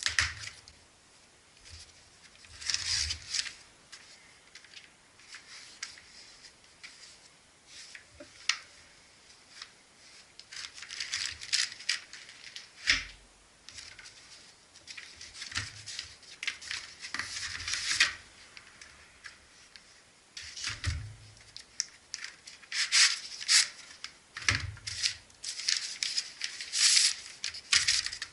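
Unboxing sounds: irregular rustling, crinkling and tearing of packaging, with clicks, light knocks and rattles of parts being handled. They come in bursts with short quiet gaps between them.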